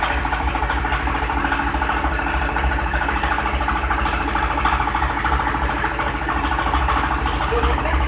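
Palm sugar grinding machine running steadily, its motor giving a constant hum with an even low pulsing.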